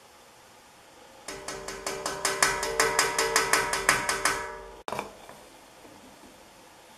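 Rapid metallic ratcheting clicks with a ringing tone, about seven a second for about three seconds, from a ceiling fan's pull chain being drawn through its speed switch. The sound cuts off sharply, then one more click follows.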